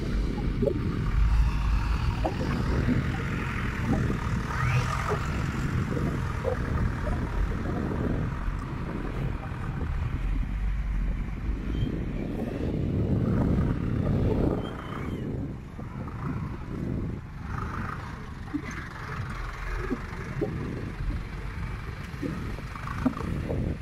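Loaded dump truck's diesel engine running with a low rumble and scattered knocks. The sound drops somewhat about two-thirds of the way through.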